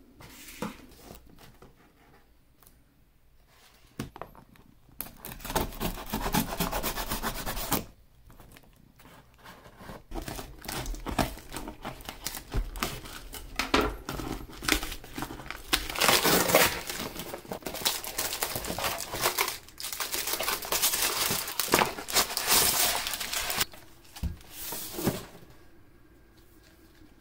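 A cardboard shipping box being opened: packing tape cut and torn, then packaging crinkling and rustling as the table tennis rubber sheets in their plastic sleeves are unpacked. It comes in bursts and dies down near the end.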